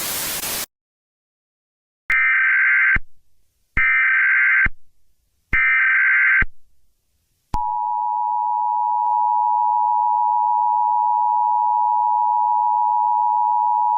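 A brief burst of static, then three short bursts of Emergency Alert System SAME header data tones, each just under a second. About seven and a half seconds in, the EAS two-tone attention signal starts and holds steady.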